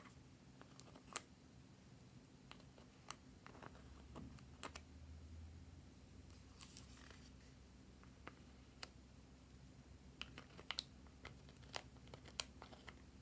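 Faint, scattered clicks and scrapes of a small plastic spatula and a brush scooping eyeshadow from the pans of a plastic palette, over a low steady hum.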